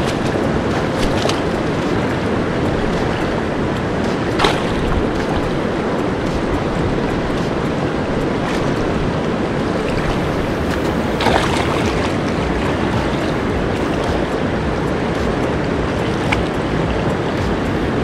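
Shallow river water rushing steadily over boulders, with a couple of brief splashes as someone wades in.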